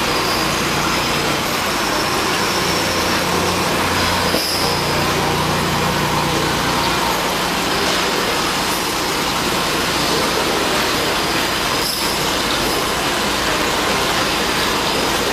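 Steady machine noise with a low hum and a faint high whine that comes and goes.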